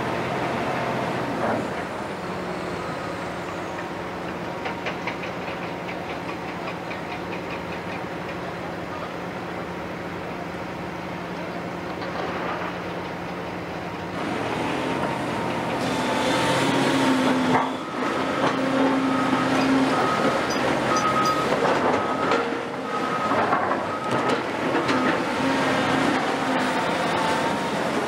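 Heavy diesel construction machinery running: a Cat 352F excavator and a wheel loader working, with a steady engine hum that grows louder and busier about halfway through. In the second half a reversing beeper sounds about once a second.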